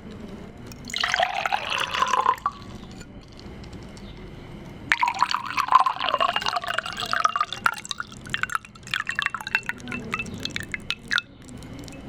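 Water being poured and dripping in three bursts of splashing, the last full of quick drip-like ticks.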